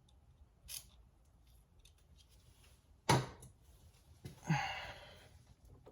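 Sparse handling sounds of hand work on an engine: a short faint hiss under a second in, a sharp knock about three seconds in, and a brief breathy rush about a second later.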